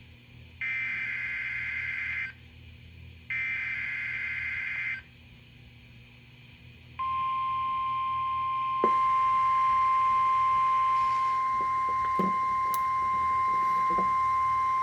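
NOAA Weather Radio Required Weekly Test signal for station KJY68. First come two bursts of warbling SAME digital header code, each about a second and a half long, with short gaps between them. About seven seconds in, the steady 1050 Hz warning alarm tone begins; about two seconds later it grows louder and a higher tone joins it.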